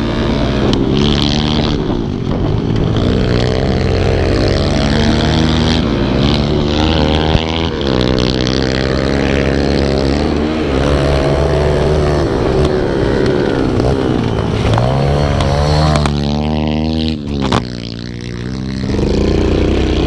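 Kawasaki KLX110 pit bike's small four-stroke single-cylinder engine running hard on a dirt track, its pitch climbing and falling again and again as the rider accelerates and shifts. About three-quarters of the way in the engine note drops off briefly, then settles to a steadier, lower note.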